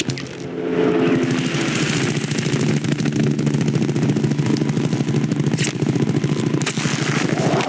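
Deep, steady buzz of a large insect's wings beating rapidly in flight, a designed cartoon sound effect. Brief whooshing sweeps cut across it twice near the end.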